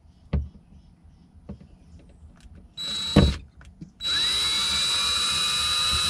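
DeWalt 20V XR cordless drill backing out a screw from a switch plate. It spins briefly about three seconds in, then runs steadily for over two seconds with a steady high whine.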